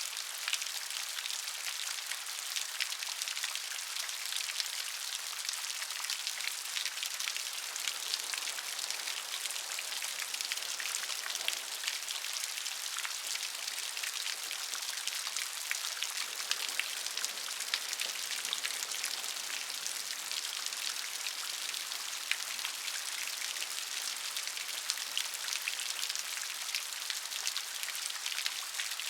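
Steady rain falling, with many fine separate drop ticks over an even high hiss.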